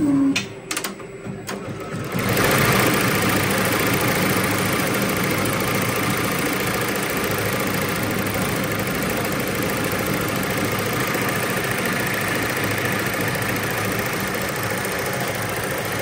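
A ZSK twelve-needle commercial embroidery machine gives a few sharp clicks, then from about two seconds in runs steadily at speed, stitching the fill of a rose design.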